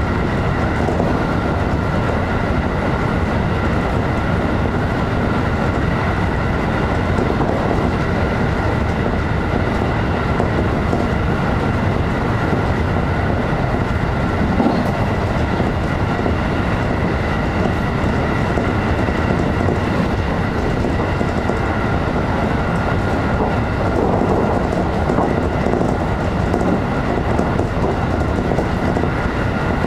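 JR electric train running steadily at speed, heard from inside the front car: an even rumble of wheels on rail with a steady high whine over it.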